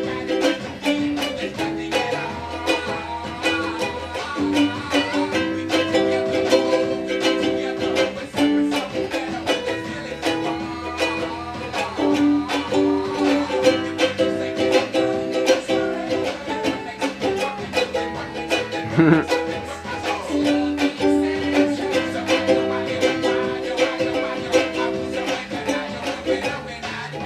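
Ukulele strummed in a steady rhythm, with the chords changing every second or two.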